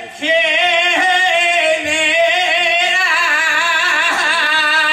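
A man singing flamenco, holding one long, ornamented line whose pitch wavers and slides between notes. It starts just after a brief pause for breath.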